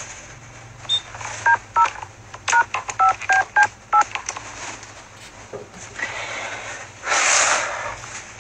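Touch-tone telephone being dialed: about seven short two-note keypad beeps in quick succession, with the clicks of the buttons. A short burst of hiss follows near the end.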